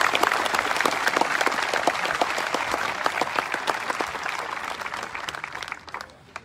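Crowd applauding, the clapping fading away near the end.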